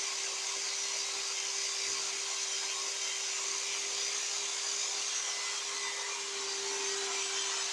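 Electric drill running steadily with a sanding attachment, filing down a fingernail: a constant motor hum with a hiss over it.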